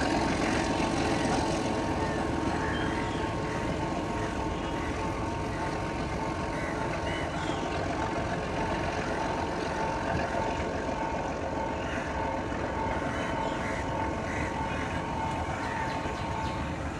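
Diesel locomotive engine hauling a train away, a steady drone that slowly fades as the train recedes.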